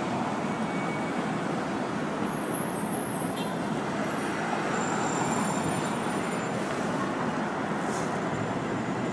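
Steady city street traffic noise: an even wash of passing vehicles with no single event standing out.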